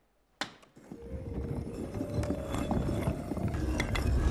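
A single sharp tap of an umbrella tip on a brick wall, then from about a second in a mounting clatter and grinding of many bricks shifting and sliding apart over a deep rumble, a film sound effect of a magic brick wall opening.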